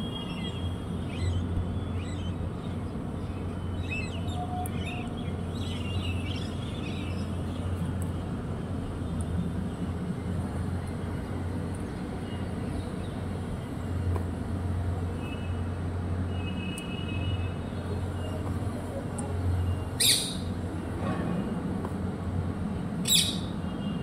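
Parrots calling: scattered short chirps, then near the end two loud, short screeches about three seconds apart, over a steady low hum.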